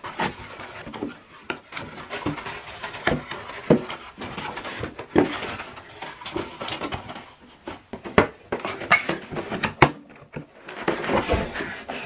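Cardboard box and molded paper-pulp packing inserts being handled and pulled out: a run of rustling and scraping, broken by sharp knocks and clicks.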